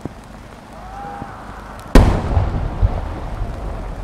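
A No. 10 (about 30 cm) aerial firework shell bursting: one sharp, very loud boom about two seconds in, followed by a rolling rumble of echoes.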